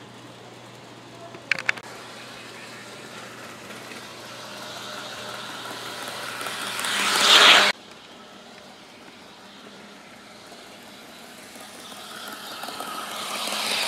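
Model train locomotives running on track, the whir of motor and wheels growing louder as a train closes on the lens, then cutting off suddenly about halfway through. A second train grows louder near the end. A couple of sharp clicks come about one and a half seconds in.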